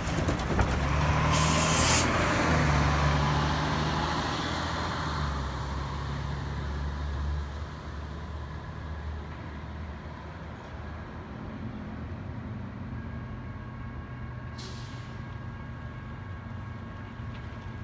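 A diesel transit bus drives past and pulls away, its engine fading out over about seven seconds. A sharp burst of air-brake hiss comes about a second and a half in. Then a quieter steady street hum remains, with a brief faint hiss near the end.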